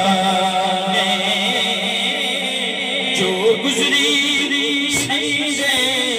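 A man sings a dohra, a devotional verse, holding long notes with wavering ornamented turns.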